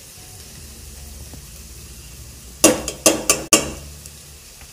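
Chopped onion frying softly in a stainless steel pot while a metal spoon stirs it; about two and a half seconds in, the spoon clanks against the pot four times in quick succession, the loudest sounds here.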